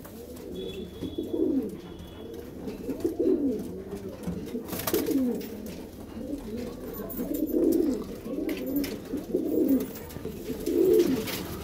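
Several Madrasi pigeons cooing in a small loft, low coos repeating and overlapping one another.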